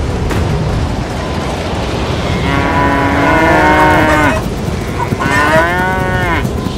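Cows mooing twice, two long moos, the second sliding down in pitch toward its end, over a steady low rumble.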